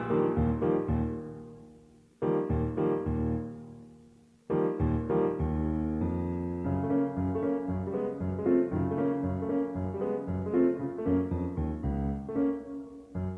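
Background piano music: two short phrases that each die away to near silence, then steady playing from about four and a half seconds in.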